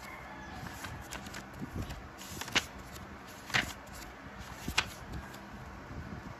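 Paper planner pages being turned by hand: a soft paper rustle with a few sharp ticks as pages flick over.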